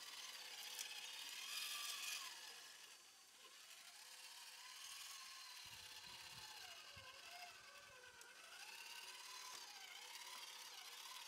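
Faint whine of a radio-controlled ZIL-131 scale truck's motor and gears, its pitch rising and falling continually as the throttle changes while it drives, with a few soft low thumps around the middle.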